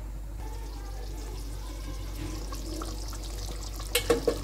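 Fish curry simmering under the lid of an aluminium pot, a steady bubbling hiss; about four seconds in the metal lid is lifted off with a few quick clanks.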